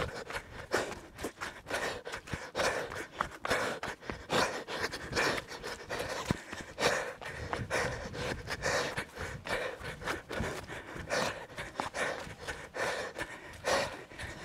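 A runner's heavy panting breaths, about one a second, with quick footfalls between them.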